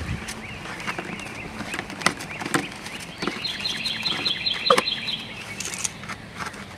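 Plastic clicks and knocks of a 1-gallon pump-up sprayer's pressure cap being screwed down. Midway, a bird chirps a quick run of repeated high notes in the background.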